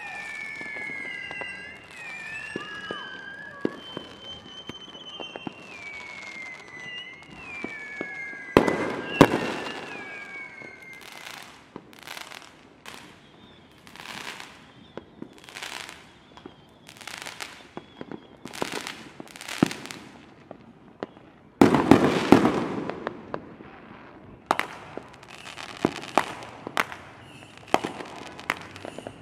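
Fireworks display: bangs and repeated crackling bursts, with a strong burst about nine seconds in and the loudest boom about twenty-two seconds in, followed by scattered bangs. Through roughly the first ten seconds a high, wavering tone glides up and down.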